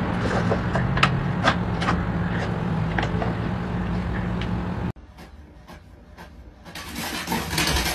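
A steady low hum with scattered sharp clicks. After an abrupt drop to quiet, a home inkjet printer's mechanism starts up with rising whirring and clattering near the end.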